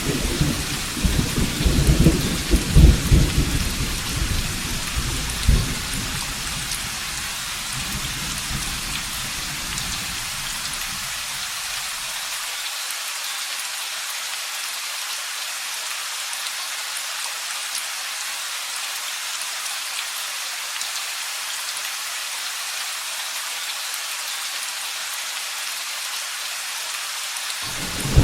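Steady heavy rain, with rolling thunder in the first half that dies away about halfway through, leaving only the rain.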